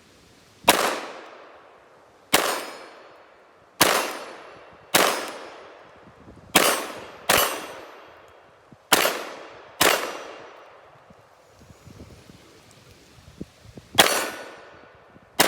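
Glock 19 9mm pistol fired about ten times at an uneven, deliberate pace, each shot followed by a long fading echo, with a pause of about four seconds before the last two shots.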